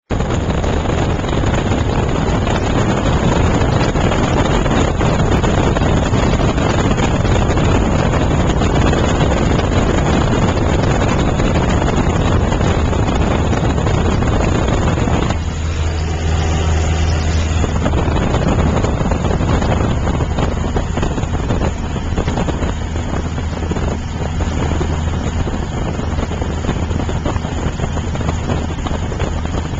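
Light aircraft's engine and propeller droning steadily, heard from inside the cabin with a loud rush of air. For a couple of seconds past the middle the rush drops back and the low engine hum stands out.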